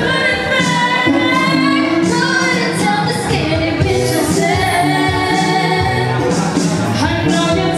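A woman singing a pop song live through a PA system, accompanied by acoustic guitar.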